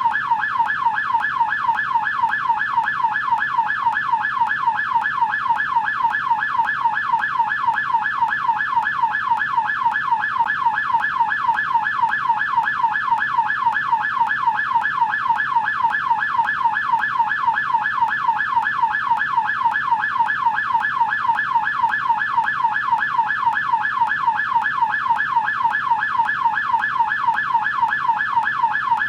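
American police siren in yelp mode: a fast, evenly repeating up-and-down wail, several sweeps a second, held steady without a break.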